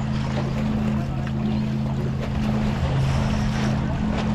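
A steady low motor hum with two droning tones, over wind on the microphone and small waves washing against shore rocks.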